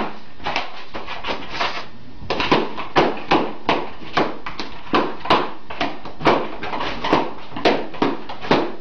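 Small dog panting fast and hard, about three breaths a second, pausing for a couple of seconds near the start.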